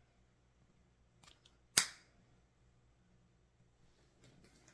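Plastic flip-top cap of a cleanser bottle snapping, one sharp loud snap about two seconds in with a few faint clicks just before it. Faint rustling near the end.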